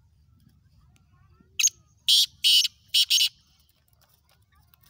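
Black francolin calling: one harsh, grating call of five notes, a short first note followed by two pairs, lasting about a second and a half.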